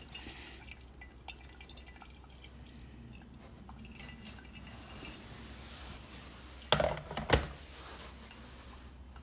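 Water being slowly poured over coffee grounds and dripping through. Two sharp knocks, about half a second apart, come about seven seconds in.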